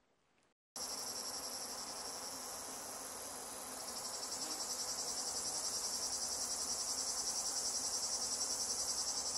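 Chorus of field insects chirring, high-pitched and steady, starting about a second in and taking on a fast, even pulsing from about four seconds on.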